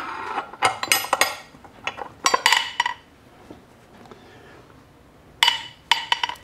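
Steel transmission parts clinking and clattering against each other and the aluminium case of a T5 five-speed gearbox as the fifth-reverse shift fork is set into place. The clinks come in four short runs, with a quiet spell a little after the middle.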